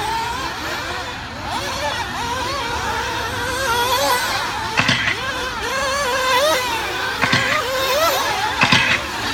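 Several nitro RC buggies' small glow-fuel engines buzzing on track, their pitches rising and falling as they accelerate and back off through the corners. A few brief sharp sounds break in near the middle and toward the end.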